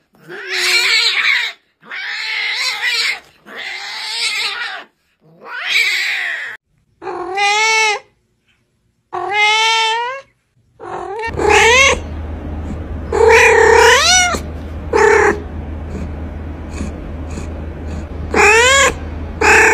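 A cat crying in long, drawn-out meows, about six of them one after another in the first ten seconds with short silences between. From about eleven seconds a steady low hum sets in under the calls, and five more, shorter meows follow.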